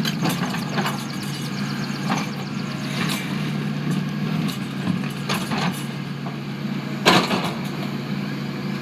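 An engine running steadily at a low, even pitch, with several sharp knocks or cracks over it, the loudest about seven seconds in.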